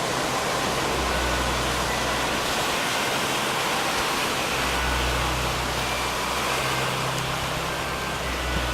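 Ocean surf: a steady, even roar of breaking waves, with a low rumble of wind buffeting the microphone.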